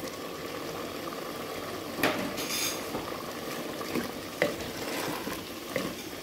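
Sliced onions and green chillies going into a simmering curry in a pressure-cooker pot and being stirred in with a wooden spatula: a steady sizzle, with a few sharp knocks and scrapes of utensils against the pot.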